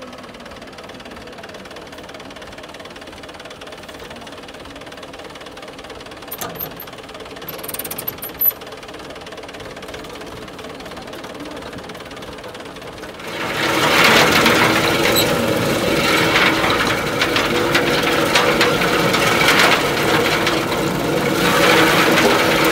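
Tractor's diesel engine running steadily, driving a homemade groundnut separator machine. About thirteen seconds in the sound gets much louder and turns to a dense, rapid rattle as groundnut plants are fed into the drum and the pods are stripped off the vines.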